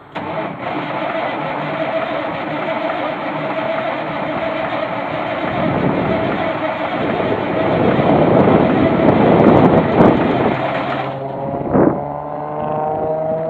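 Caterpillar 3406B diesel in a 1980 Kenworth W900A cold-starting at 20°F after three weeks sitting. It cranks on the starter with a steady whine, begins firing and grows louder, then about eleven seconds in catches and its pitch rises as it comes up to speed.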